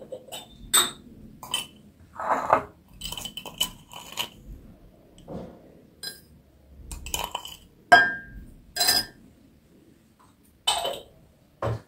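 A metal teaspoon clinking and tapping against a ceramic mug as sugar is spooned into tea: a string of separate sharp clinks, one with a short ring about eight seconds in, and a duller knock near the end.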